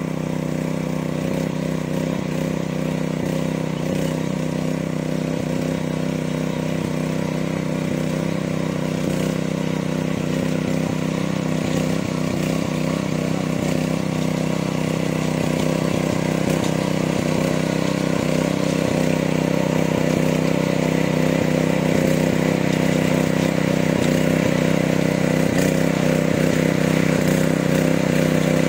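Alap 7.5 hp power weeder's engine running steadily under load, its note holding even and growing gradually louder as the machine comes closer.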